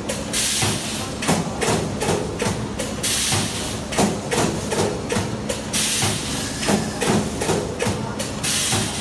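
Automatic multi-head wire mesh welding machine running: the welding heads and mesh feed clank several times a second, and a burst of compressed-air hiss from the pneumatic head cylinders comes about every three seconds, over a faint steady hum.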